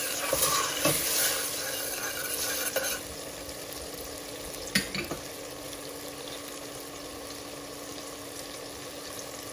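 Tomato purée sizzling as it fries in oil in a stainless steel pot, being cooked down until its water dries off. A metal spoon stirs and scrapes against the pot for about the first three seconds, then the sizzle goes on steadier and quieter, with a couple of sharp clicks about five seconds in.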